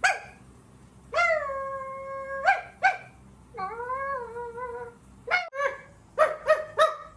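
A person doing a dog imitation as a funny noise: a short cry, two drawn-out pitched notes (the second wavering up and down), then a quick run of about six short yips.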